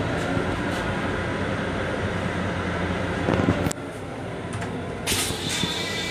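A steady rushing noise, with a thump just before it, stops suddenly a little past halfway. Near the end the M7 railcar's toilet flushes, water rushing and swirling into its stainless-steel bowl with a faint whistle.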